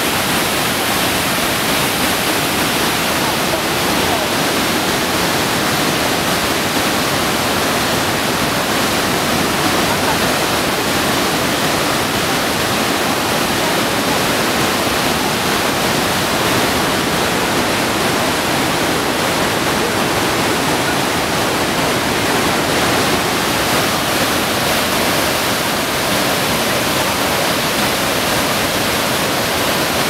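The Rhine Falls, a large river waterfall, with white water pouring over rocks in a loud, steady rush that never breaks or changes.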